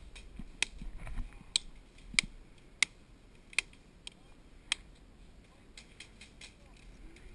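Airsoft pistol fired in single sharp cracks, about seven of them at uneven spacing roughly every half second to a second, then only fainter ticks near the end.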